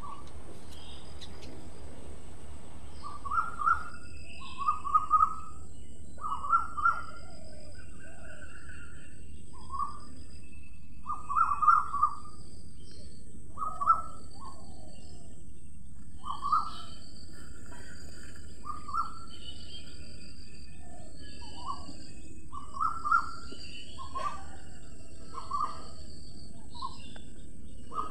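Wild birds calling: a series of short, clear notes about once or twice a second, starting a few seconds in, with fainter higher chirps among them over a steady high-pitched hiss.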